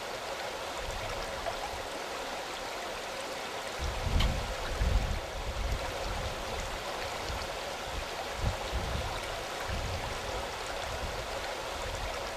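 Steady rush of river water flowing over rocks, with uneven low rumbles starting about four seconds in.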